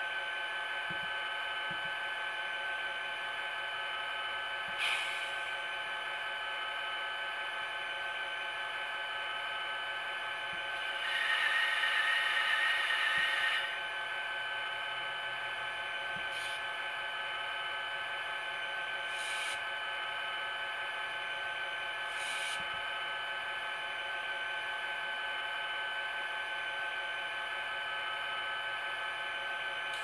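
ESU LokSound decoder in an N scale Kato SDP40F model locomotive playing a diesel engine idling steadily through its tiny speaker. A few short hisses come through, and a louder hiss lasts about two and a half seconds near the middle.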